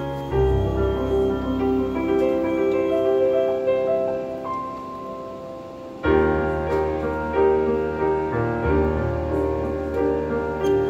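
Background music led by piano. About six seconds in, the music breaks off and a new, louder passage starts.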